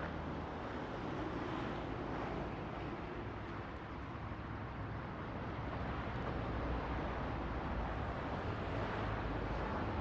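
Steady outdoor background noise: an even low rumble and hiss with a faint steady hum, and no distinct bird calls.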